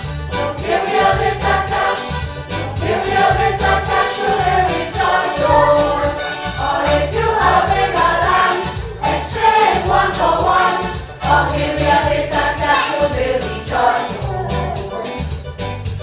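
A choir singing with instrumental backing and a steady beat.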